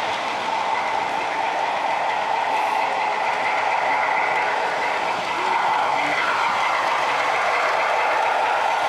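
Model train running steadily on layout track, a continuous rolling rumble of wheels and motor, with a tone that slides downward about six seconds in.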